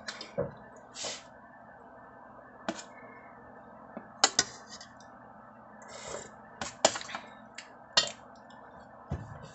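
Metal spoon and fork clinking and scraping against a stainless steel soup pot and a plate while eating, in irregular clinks and taps.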